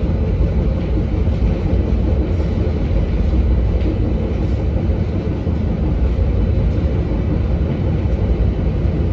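Steady low rumble of a moving Metra diesel-hauled commuter train, heard from inside a passenger car.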